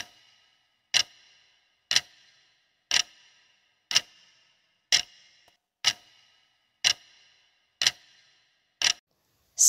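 Countdown-timer clock ticking, one sharp tick a second, each with a brief ringing tail, about ten ticks while the quiz's answer time runs.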